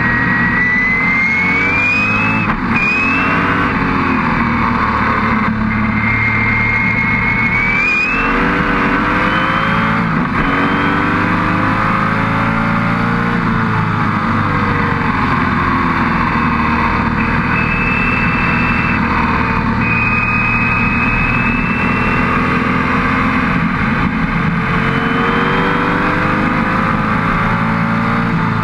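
Lola T70 Spyder's V8 racing engine heard from onboard the car, at full throttle. Its note climbs twice in the first eight seconds, each pull cut short by a quick upshift, then stays at high revs, easing off and building again through the corners.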